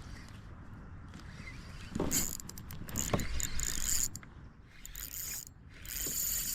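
Fishing reel being cranked in two spells, about two seconds in and again near the end, with a pause between.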